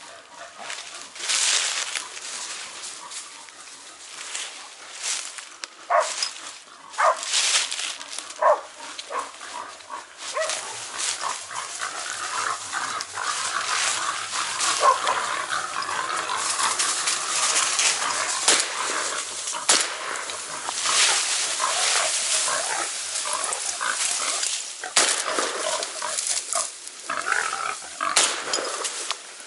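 Laika hunting dogs barking at a wild boar they are holding at bay, with the boar squealing and grunting amid the barking; a few separate barks come first, then a long, busy stretch of overlapping barks and squeals. Brush and dry leaves rustle as someone pushes through the undergrowth.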